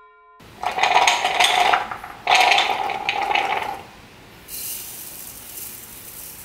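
Boiled chickpeas tipped into a clear plastic mini chopper bowl in two pours, each a loud rattling patter. From about four and a half seconds in, sesame seeds pour in with a fainter, fine hissing patter.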